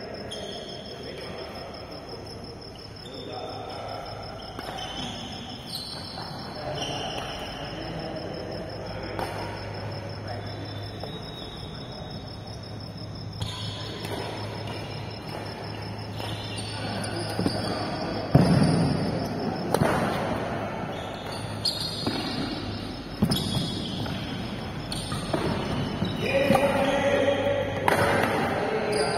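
Badminton rally in an echoing indoor hall: sharp cracks of rackets striking the shuttlecock, about one a second or so in the second half, with players' voices and shoe sounds on the court floor.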